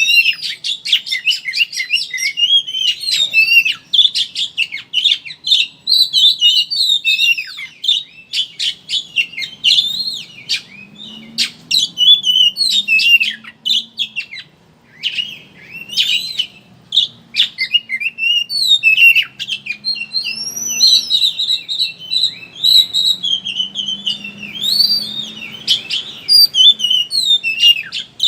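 Oriental magpie-robin (kacer) singing its rapid chattering 'ngeriwik' song: a fast, unbroken stream of high twittering notes and short gliding whistles, with a brief pause about halfway.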